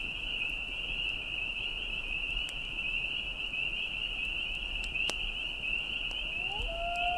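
A steady, high chorus of insects trilling. Near the end, gliding electronic music tones come in.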